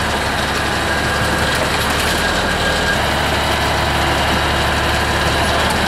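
The Atlas 1300 excavator's air-cooled three-cylinder Deutz diesel running steadily as the machine drives its wheels up onto a crushed car body.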